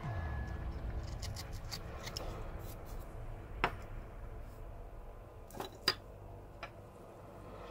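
Carving gouge cutting and scraping into cottonwood bark, with low handling rumble from the hands gripping the piece. Two sharp clicks come in the second half as the tools are set down on the wooden bench.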